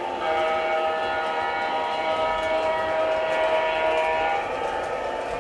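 O gauge model trains running on the layout, with a chord of steady tones like an electronic diesel horn held from just after the start until about four seconds in.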